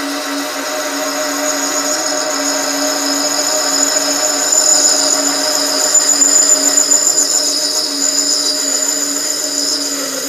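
SC2 mini lathe running in reverse, its drive giving a steady whine, while an upside-down parting-off tool cuts into a 28 mm aluminium rod. A higher squeal from the cut swells about halfway through and eases off again.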